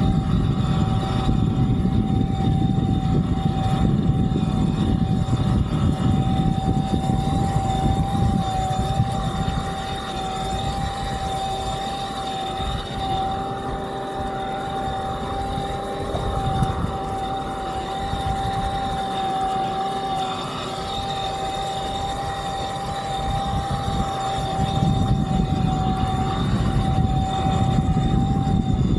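Fliteboard Ultra eFoil's electric motor and propeller whining at a steady pitch while the board rides on its foil, over a low rush of wind and water that is heavier at the start and near the end.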